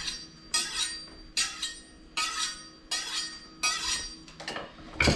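Kitchen knife being honed on a sharpening steel: about eight quick, ringing metallic scrapes, roughly one every three-quarters of a second.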